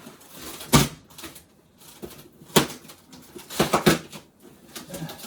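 Statue packaging being handled and pulled apart: a series of sharp knocks and scraping rustles, the loudest about a second in and again twice close together near four seconds in.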